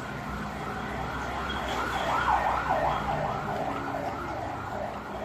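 Emergency vehicle siren on a fast yelp cycle, its pitch sweeping up and down about two and a half times a second, swelling to its loudest a couple of seconds in and then fading.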